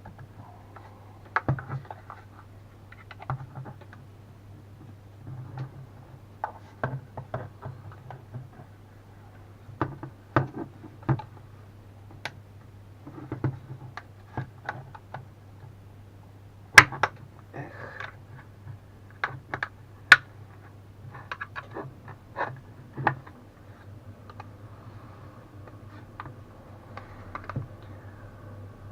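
Irregular clicks and knocks of a plastic power bank case being handled and pried apart, two sharper snaps about two-thirds of the way through, over a steady low hum.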